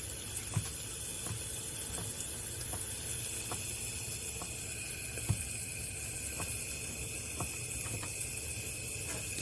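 Knife cutting a tortilla into thin strips on a cutting board, a short tap with each stroke about every 0.7 s, over the steady hiss of chicken frying in a hot pan.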